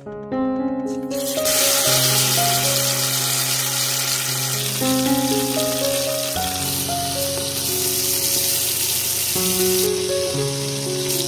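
Beef roast sizzling as it sears in hot oil in an Instant Pot's stainless steel inner pot, starting about a second in and running steadily. Piano background music plays throughout.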